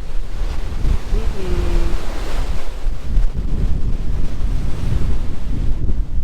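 Wind buffeting the microphone over the steady wash of breaking surf from a big storm swell.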